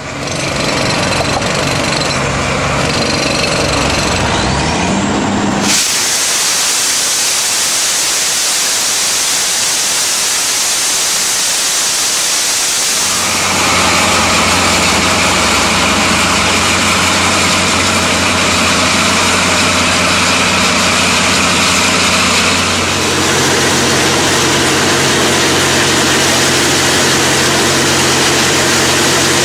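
Truck-mounted ultra-high-pressure water-jet scarifier at work on concrete. The truck's engine and pump rise in pitch at first. A loud, steady jet hiss cuts in about six seconds in, and from about thirteen seconds a steady engine drone runs under the hiss.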